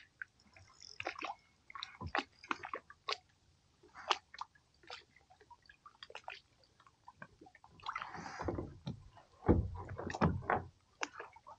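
Light clicks and knocks of rod, reel and body moving in a plastic Hobie kayak. From about eight seconds in, louder water sloshing and heavy knocks against the hull come as a fish is hooked and fought on the bent rod.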